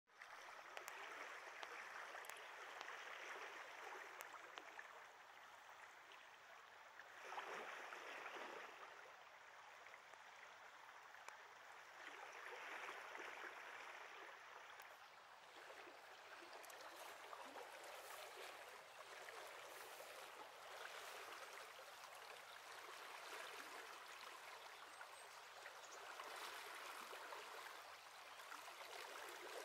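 Small stream running high and fast with muddy floodwater: a faint, steady wash of water over small riffles that swells and eases every few seconds.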